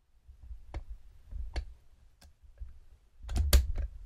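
Sharp metallic clicks from handling a brass Yale padlock just picked open: three single clicks spaced out, then a louder quick run of clicks near the end.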